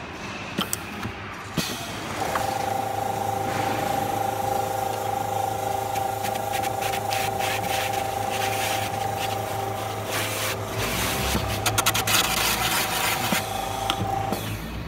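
Electric coconut peeling machine: a few clicks as the coconut is set in place, then the motor starts about two seconds in with a steady whine while the coconut spins against the blade, and the green husk is scraped and shaved off, growing into a rapid rasping near the end. The motor stops shortly before the end.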